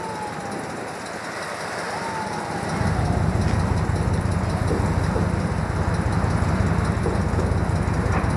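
City street traffic noise. About three seconds in, a loud, steady low rumble sets in, like a large vehicle's engine running close by.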